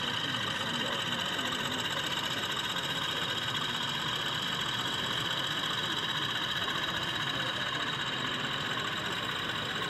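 Diesel engine sound from an OO gauge model locomotive's DCC sound decoder, running steadily through the model's small speaker.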